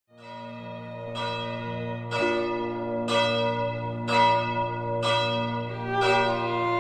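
A deep bell struck about once a second, each stroke ringing on, over held low chords that shift about two seconds in, as the opening of a piece of music.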